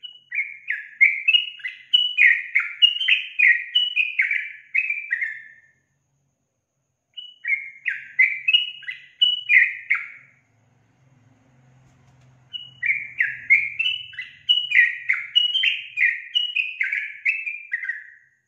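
Yellow-vented bulbul (trucukan) singing three phrases, each a quick run of repeated falling notes, with short breaks about six and eleven seconds in.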